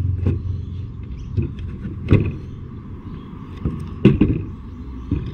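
A few sharp clicks and knocks of steel pliers bending a cut fish-hook shank into an L-shaped eyelet in a hole in a wooden board, then being laid down on the table, the loudest knock about four seconds in. A low vehicle rumble fades out in the first second.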